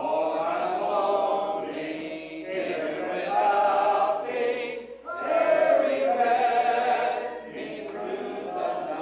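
Church congregation singing a hymn together a cappella, with no instruments, in phrases with brief breath pauses between them.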